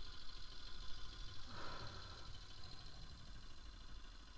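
Bajaj Pulsar RS200's single-cylinder engine running low and steady, heard as a dull rumble through a helmet camera. A short higher-pitched sound comes in about a second and a half in.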